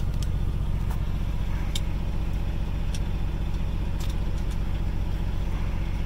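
A semi truck's diesel engine idling steadily, a low hum heard from inside the sleeper cab. A few light clicks come from the gun's metal parts being handled.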